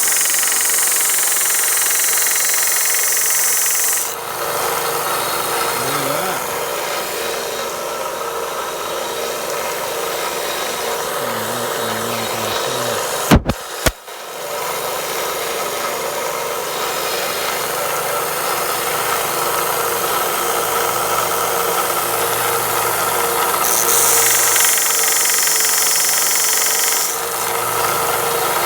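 Harbor Freight 1" x 30" belt sander running, with plywood pressed against the abrasive belt: a steady motor-and-belt hum with a bright, hissing rasp while the wood is being sanded, at the start and again near the end. A sharp knock about halfway through.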